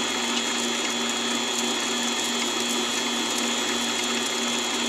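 Mini-lathe running at a steady speed while a 0.5 mm drill bit is fed into a spinning brass screw. The motor and gear train make a constant whine with a steady high tone.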